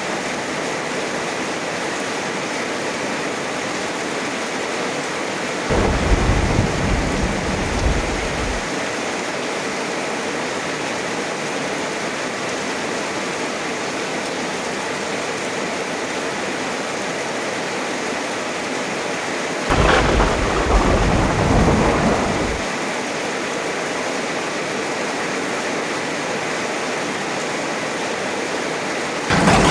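Heavy rain falling steadily, with thunder breaking in sharply twice, about six seconds in and about twenty seconds in, each clap rumbling for about three seconds. A third clap starts just before the end.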